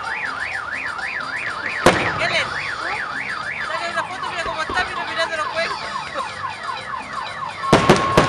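A car alarm sounding: a fast up-and-down warble, about three or four swings a second, changes a few seconds in to a run of quickly repeated falling chirps. Firework bangs cut through it once about two seconds in and several times near the end.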